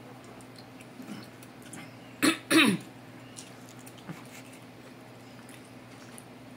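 A person clears their throat in two quick bursts about two seconds in, the second falling in pitch, with faint mouth clicks from chewing around it.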